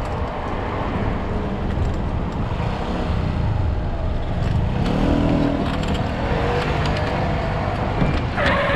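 Road traffic at a city junction: a steady low rumble of vehicle engines, with one engine's pitch rising and falling about five seconds in. Near the end a louder, higher pitched sound starts.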